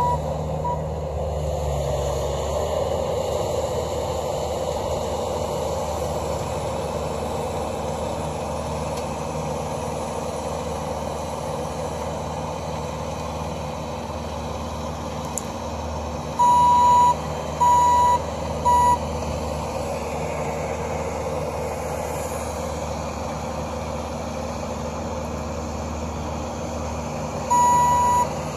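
Bobcat skid steer's engine running steadily, with its back-up alarm beeping about once a second: three beeps a little past halfway, and again near the end.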